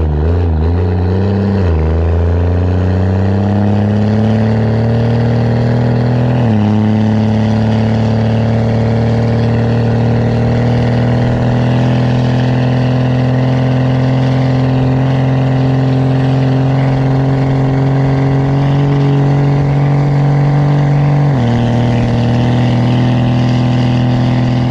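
Dodge Ram's Cummins turbo-diesel accelerating, heard through its exhaust stack. Engine pitch climbs, then falls at each upshift of the freshly rebuilt 47RE automatic transmission: about 2, 6 and 21 seconds in. Between the second and third shifts it holds a steady pull.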